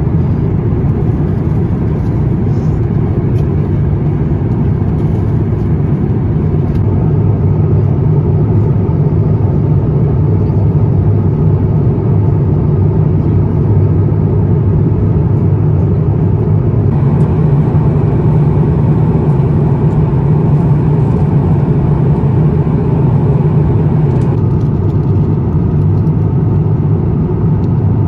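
Airbus A350-1000 cabin noise in flight: a steady low rushing drone of airflow and engines heard from an economy window seat. Its tone shifts slightly about 17 seconds in and again about 24 seconds in.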